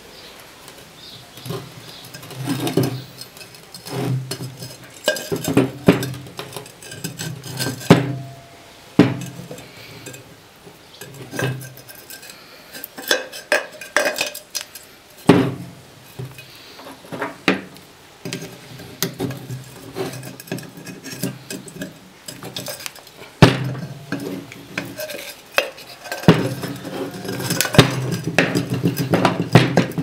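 Metal parts of an opened refrigerator compressor clinking, clanking and scraping as they are worked loose and pulled out of the steel shell, with irregular sharp knocks throughout.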